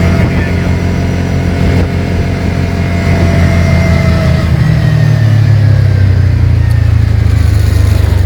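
Dune buggy engine running loudly while the buggy is driven, its note shifting about four and a half seconds in.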